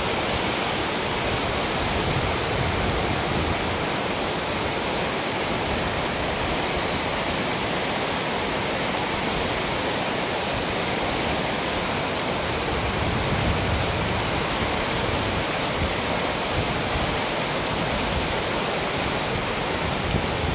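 Silt-laden floodwater of a swollen river rushing past in a steady, unbroken wash of noise.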